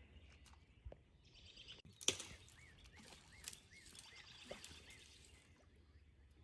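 A bird singing a quick run of short, repeated chirps, about three a second, over faint rustling with a few sharp clicks and snaps.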